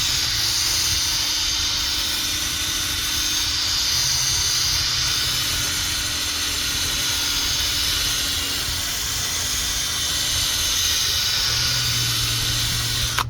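Electric drill spinning an 800-grit sanding pad over a plastic headlight lens: a steady motor hum with the hiss of the abrasive on the lens, cutting off abruptly at the end.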